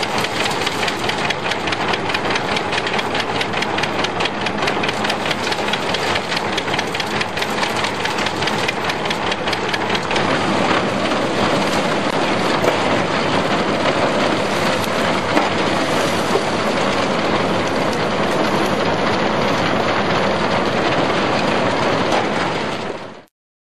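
Antique corn shredder running with a fast, steady mechanical rattle as dry corn stalks are fed into it. The sound cuts off suddenly near the end.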